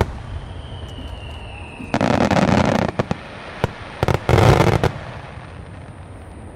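Aerial fireworks shells bursting: two heavy bursts about two seconds apart, each a second-long blast, with sharp single pops between them. A faint falling whistle comes before the first.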